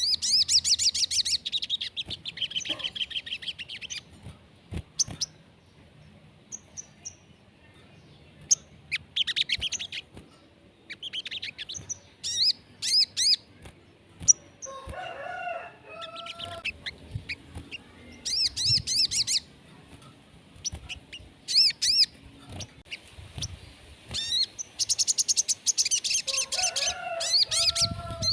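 Crimson sunbird (kolibri sogon) song: bursts of rapid, high-pitched trilled chirps every few seconds, played as a stimulation recording to get caged birds singing. Twice, a lower, harsher call cuts in, once about halfway and once near the end.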